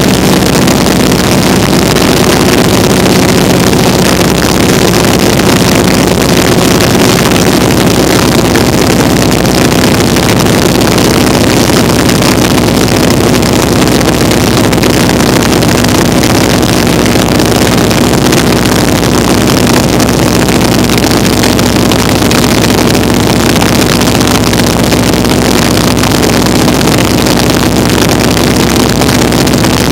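Vintage open-cockpit biplane's engine and propeller running steadily in flight, a loud continuous drone with wind rushing over the microphone.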